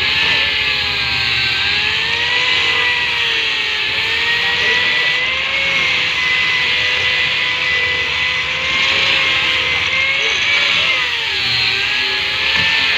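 Electric hand grinder running continuously on a sofa frame, a steady high whine with a hiss from the disc on the work. Its pitch sags and recovers as it is pressed in, with the deepest dip near the end.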